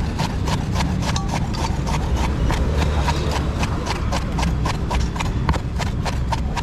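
Large kitchen knife chopping red onions on a wooden cutting board: fast, even knocks of the blade on the wood, about six a second, over a low steady rumble.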